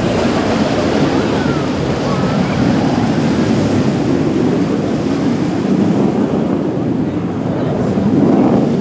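Steady low roar of a B-2 Spirit's four turbofan jet engines passing overhead, blended with wind on the microphone and surf. The roar swells a little near the end.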